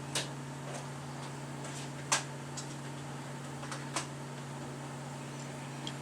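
Room tone: a steady low hum with a few short sharp clicks, the loudest about two seconds in, and two softer ones near the start and about four seconds in.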